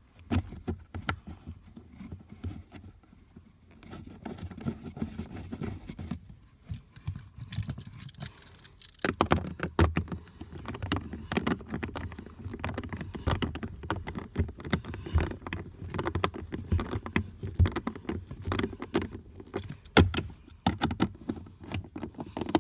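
Socket wrench with a 5.5 mm socket on an extension tightening the cabin air filter cover screws: runs of rapid small metallic clicks and rattles, pausing briefly about six seconds in and getting busier from about nine seconds on.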